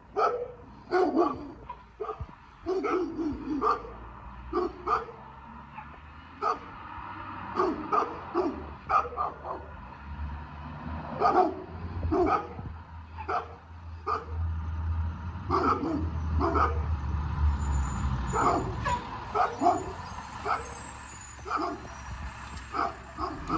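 A dog barking repeatedly, over the low rumble of a garbage truck's engine that grows louder as the truck approaches.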